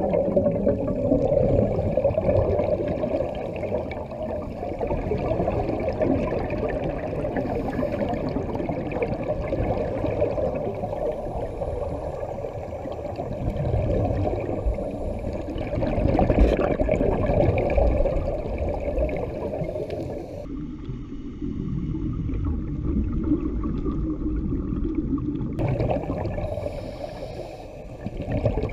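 Muffled underwater bubbling and rushing of scuba divers' exhaled regulator bubbles, heard through a waterproof camera housing. About three-quarters of the way through, the sound turns duller for several seconds, then returns.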